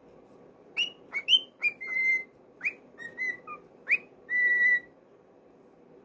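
Male cockatiel whistling: a run of short, sharply rising chirps for about three seconds, ending with one steady held whistle of about half a second.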